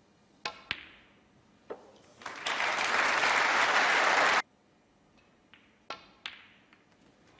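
Snooker balls clicking: cue tip on ball and ball on ball, a few sharp knocks. A burst of audience applause lasts about two seconds and cuts off suddenly, followed by two more ball clicks.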